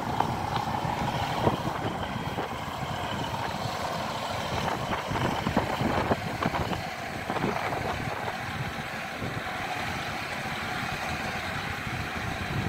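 Class 153 diesel multiple unit rolling slowly past as it slows for the station stop, its underfloor Cummins diesel engine running at idle, with scattered knocks from the wheels and running gear.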